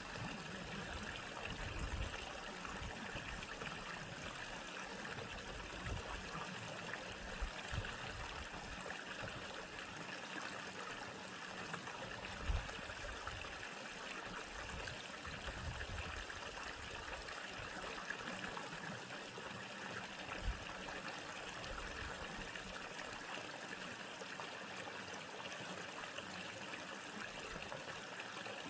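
Mountain valley stream flowing steadily, a continuous even rush of water, with a few brief low bumps.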